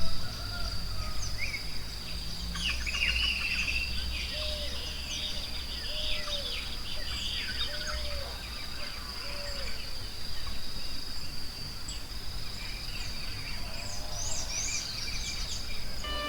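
Forest ambience: several birds chirping and calling over a steady, high, shrill insect drone, with a short low call repeated about every second and a half through the middle.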